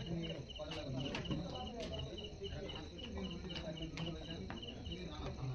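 Crickets chirping steadily in a regular rhythm, about three short chirps a second, with low murmuring voices and a few sharp clicks underneath.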